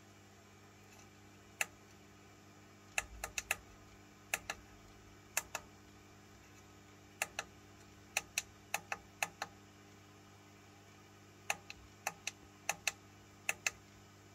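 Small push buttons on a homebuilt Si5351 oscillator clicking as they are pressed, in short irregular runs and pairs, while its frequency is stepped. A steady low hum sits underneath.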